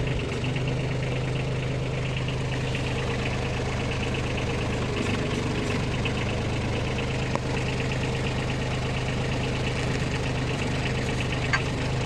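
Kubota B2401 tractor's three-cylinder diesel engine idling steadily, with a single light click about seven seconds in.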